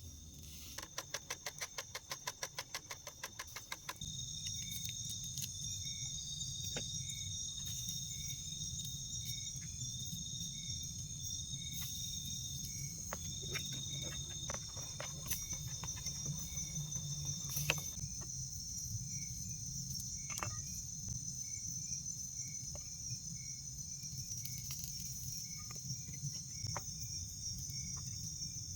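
Forest insects and crickets trilling steadily in high, shrill tones, with a softer chirp repeating about every second and a low background rumble. About a second in, a fast run of loud clicks lasts roughly three seconds.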